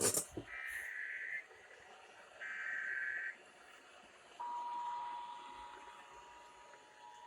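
Emergency Alert System tones on a radio broadcast, opening a Required Monthly Test: after a click, two short bursts of the SAME header's harsh, buzzy data tone, each just under a second, then about four seconds in the steady two-tone attention signal (853 and 960 Hz) starts and holds, slowly getting fainter.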